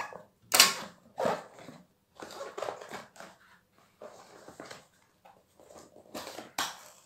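A small cardboard box being torn open by hand, its tape and flaps ripping and rustling in a string of uneven tears. The sharpest rips come about half a second and a second in.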